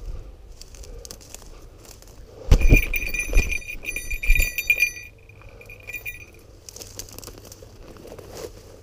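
Small metal falconry bells on a goshawk jingling steadily for about two and a half seconds, mixed with a few heavy thumps, then ringing faintly for about a second more. Footsteps crunch through dry brush before and after.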